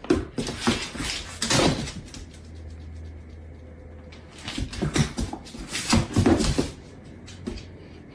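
Two clusters of knocks and bumps, the first in the opening two seconds and the second starting about four and a half seconds in, with a low hum between them.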